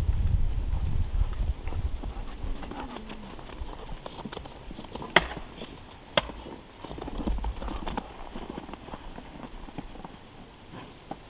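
Footsteps in snow as a person walks across the camp, with two sharp clicks about five and six seconds in. A low rumble fills the first second or two.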